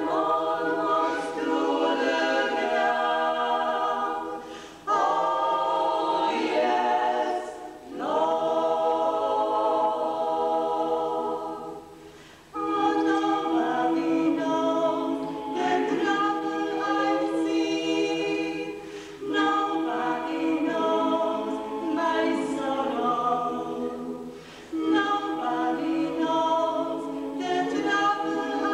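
Women's klapa ensemble singing unaccompanied in close harmony, in long held phrases with short breaks between them.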